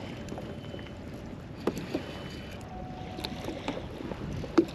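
Small waves lapping against a plastic fishing kayak's hull, with a few light knocks and clicks, the sharpest just before the end.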